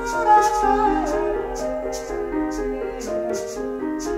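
Minimalist piano music: repeating patterns of held and stepping notes, with a faint high tick about twice a second.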